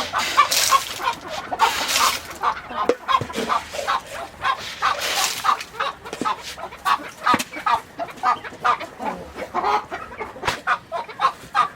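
Chickens clucking, a quick run of short calls several a second, with a few brief bursts of noise among them.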